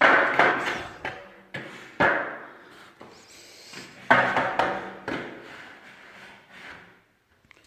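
A series of sharp knocks and clatter, each ringing and echoing in a bare, hard-walled room, about six in all, the last around five seconds in.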